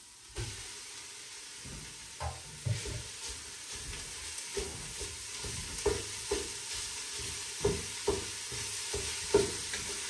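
Minced meat sizzling as it browns in a hot pot with onions, garlic and grated carrot, stirred with short knocks against the pot about once a second.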